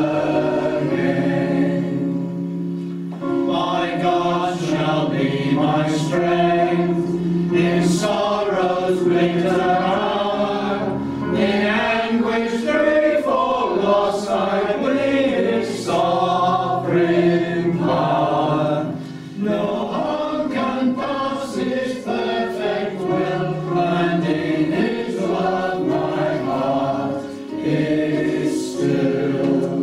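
Congregation singing a hymn together, verse after verse, with held notes and short breaths between lines.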